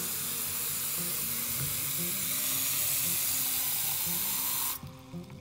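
Bathroom sink tap running into a watering can: a steady rush of water that cuts off suddenly near the end as the tap is closed.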